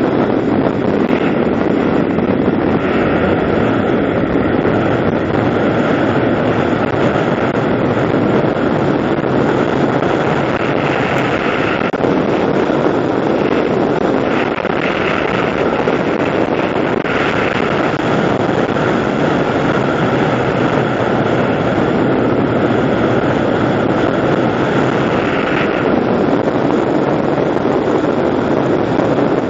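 Steady wind rush on a helmet-mounted camera's microphone, with a vehicle's running drone underneath, while riding along a paved road.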